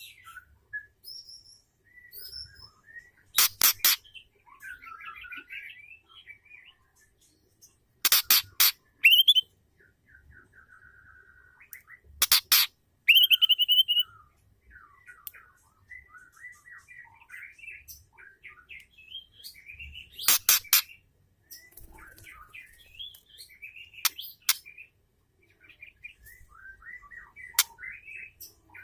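Female white-rumped shama calling: soft chirps and twittering notes, broken about six times by short, loud, harsh rattling calls of three or four rapid strokes each.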